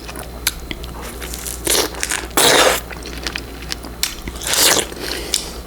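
Close-miked biting and chewing of fresh strawberries: wet crunches and many small mouth clicks, with three louder chomps, the loudest about two and a half seconds in.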